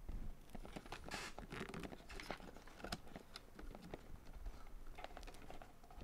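Faint scraping, rubbing and small plastic clicks as a RAM stick with a heat sink is worked by hand into a motherboard's DIMM slot that it does not go into easily.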